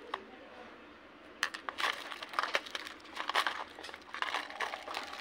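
Plastic rustling and crinkling with small irregular clicks as fishing tackle is handled, starting about a second and a half in.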